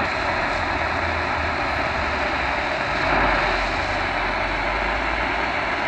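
Tecsun H-501x portable shortwave receiver giving a steady rushing static through its speaker as it is tuned down the 22 meter band between stations in AM mode, no station audible.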